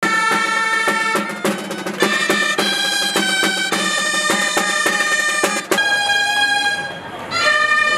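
Gralles, Catalan double-reed shawms, playing a melody together over the beat of a timbal drum. About six seconds in the drum stops and the gralles play on alone.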